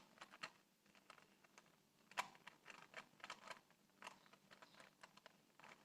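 Faint, irregular plastic clicks of a 2x2 Rubik's Cube's layers being turned by hand, most of them in a cluster between about two and four seconds in.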